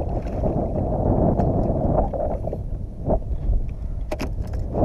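Wind buffeting the microphone, with a hooked rainbow trout splashing at the water's surface. A few sharp clicks about four seconds in.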